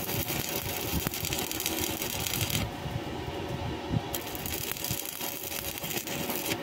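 Stick (arc) welding on a steel pipe joint: the electrode's arc crackling steadily, breaking off about two and a half seconds in and striking again a little over a second later.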